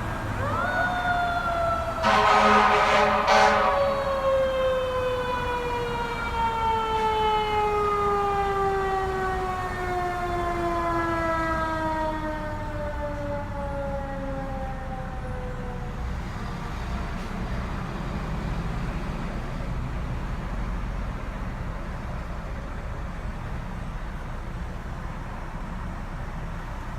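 Fire engine siren winding up quickly, then sliding slowly down in pitch for about fifteen seconds as it fades, with a loud horn blast about two seconds in. Over the truck's low engine and road noise.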